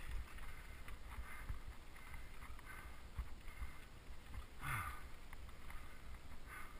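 Bicycle rolling over a rough stony gravel track: tyres on loose stones and the bike rattling over the bumps, with a steady low rumble and one louder burst about two-thirds of the way through.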